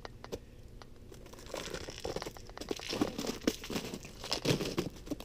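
Footsteps crunching on ice-glazed snow: a run of irregular crunches, several a second, starting about a second and a half in and getting louder.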